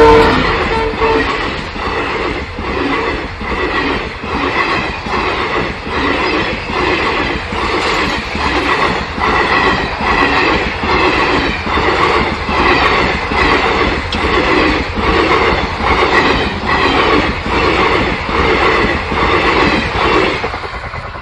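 Nepal Railway diesel multiple-unit train: the tail of a horn blast, falling in pitch, in the first second, then a steady rhythmic clatter of wheels over the rails, about one or two beats a second.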